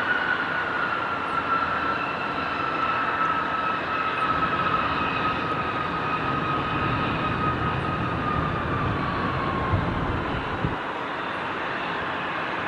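Boeing 737-500 jetliner's CFM56-3 turbofan engines on landing: a strong whine with a slowly falling pitch over a steady jet rush. The whine fades about ten seconds in as a deeper rumble swells.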